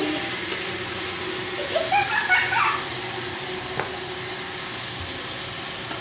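Roomba robot vacuum running steadily on a hardwood floor, a constant whirring hum. About two seconds in, a brief high squeal rises and falls over it.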